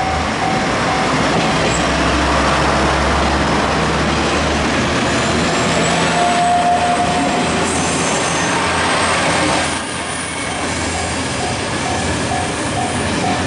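KiHa 140-series diesel railcars passing close by, their diesel engines running and wheels rumbling over the rails. About ten seconds in the sound drops, and a level-crossing warning bell ringing in steady pulses comes in; the same bell is fading out at the start.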